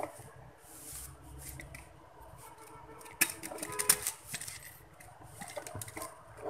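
Clicks and light rattles from an electric stand fan being handled: its grille, plastic housing and wires knocking as it is turned and the motor wiring is taken in hand, with a short burst of sharper clicks about three to four seconds in.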